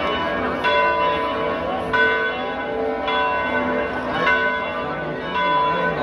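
Church bells ringing, a fresh strike about once a second, each note ringing on into the next.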